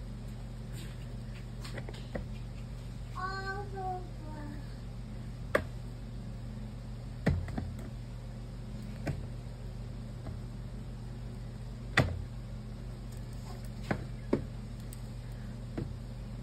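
Pen writing on a paper sticky note over a steady low hum, with a toddler's short vocal sound about three seconds in and a few sharp clicks or knocks scattered through, the loudest about twelve seconds in.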